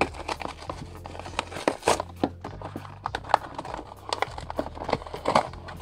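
Cardboard and clear-plastic figure box being torn open by hand: cardboard tearing and the plastic window crinkling, in quick, irregular sharp crackles and snaps.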